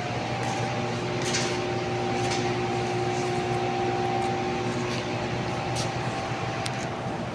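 Steady mechanical hum from a running motor or air-handling unit, holding several steady tones, with a few light clicks and scrapes from handling about one and two seconds in and again near the end.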